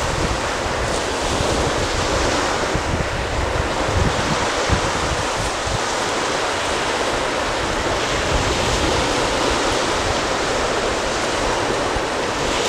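Wind blowing across the camera's microphone: a steady rushing noise with uneven low rumbling gusts.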